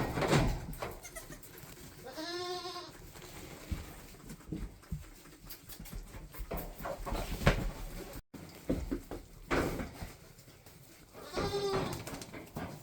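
Nigerian Dwarf goat kid bleating twice, each a short wavering call: one about two seconds in and another near the end. Scattered knocks and rustling in between.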